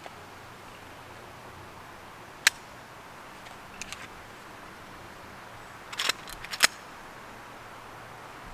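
Metallic clicks and clacks of a Glock 17 pistol being handled to clear a misfeed caused by a round sitting nose-down in a cheap extended magazine: one sharp click about two and a half seconds in, a few faint clicks, then a quick run of louder clacks about six seconds in.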